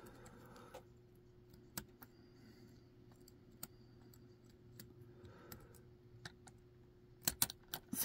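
Faint, scattered metallic clicks and ticks of a steel lock pick working the pin stack in the keyway of a Britannium six-pin shutter padlock. The clicks come singly at irregular intervals, then in a quick cluster of three or four near the end.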